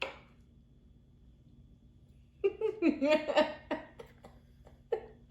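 A person laughing in short bursts, starting about halfway through and lasting about two seconds.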